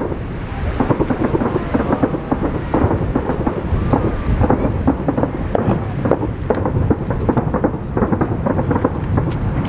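Fireworks bursting in rapid succession: dense crackling and booms over a continuous low rumble.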